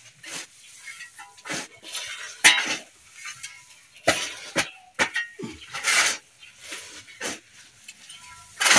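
Steel shovel blades scraping into a gritty heap of soil and sand and tossing it, turning over the substrate mix: irregular scrapes about once a second, with the rattle of grit falling.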